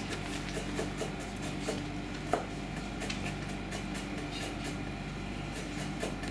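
Kitchen knife clicking on a cutting board as lemongrass is sliced thin, in irregular light taps with one sharper knock a little over two seconds in. A steady low machinery hum runs underneath.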